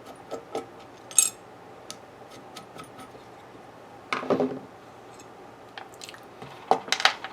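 Metal parts of a #4 hand plane clinking and clattering as they are handled: the loose frog and its two machine screws being lifted out and set down. A sharp ringing clink about a second in, and two short bursts of clatter, one around four seconds and one near the end.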